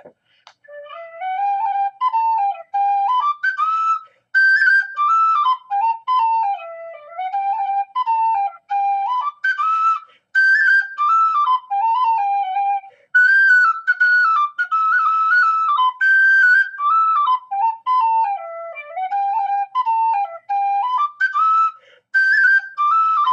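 3D-printed prototype of an O'Riordan-style Irish tin whistle in D playing a tune: a melody of clear notes running from the bottom D up into the second octave, in phrases with short breaks for breath. The prototype, its blade reworked by hand, plays, though not yet as well as its maker wants.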